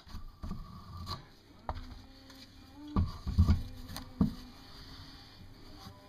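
A series of irregular dull knocks and bumps, about eight, the loudest a quick cluster three to three and a half seconds in: objects being handled and set down on a workbench.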